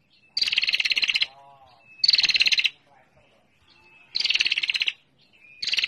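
Female prenjak (prinia) giving its rapid, buzzing trill, the 'ngetir' call used as a lure: four bursts each under a second long, about every one and a half to two seconds, each preceded by a short thin note.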